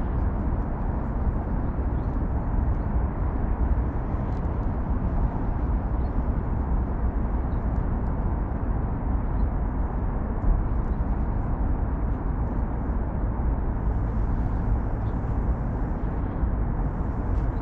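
Steady low rumble of distant city traffic from the Seongsan Bridge area, with a few faint ticks now and then.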